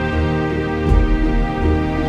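Instrumental background music with long held notes over a deep bass.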